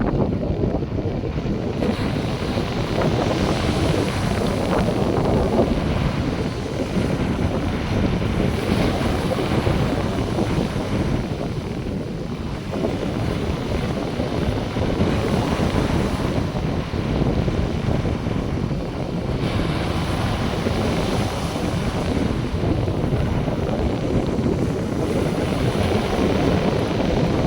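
North Sea surf washing onto the beach, the hiss of the wash swelling every several seconds. Wind buffets the microphone with a steady low rumble.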